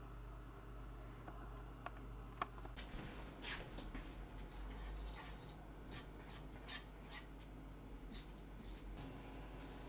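Wire whisk stirring dry flour in a stainless steel mixing bowl, with irregular scraping strokes and light metallic clinks against the bowl's side, starting about three seconds in.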